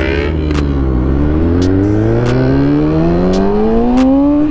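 2010 Kawasaki ZX-6R's inline-four engine accelerating hard. The revs drop as it shifts up about half a second in, then climb steadily in second gear.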